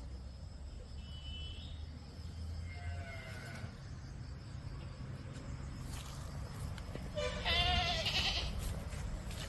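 Goats bleating: a few faint calls in the first few seconds, then one loud, wavering bleat about seven seconds in, over a low steady rumble.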